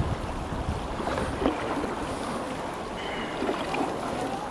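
River current rushing and splashing around a kayak held against the flow, with wind rumbling on the microphone.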